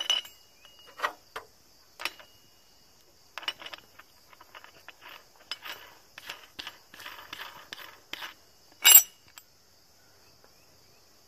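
Steel washer and hex nut clinking against a large threaded steel treehouse bolt and its steel bracket as they are slid on and the nut is spun on by hand: separate clinks, then a run of light rapid metal clicks, and one sharper clink about nine seconds in. A faint steady high insect drone underneath.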